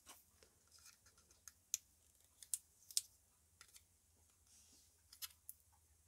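Faint, scattered clicks of pliers working the thin sheet-metal tabs of a microwave turntable motor's housing, pinching them closed so the cover stays on.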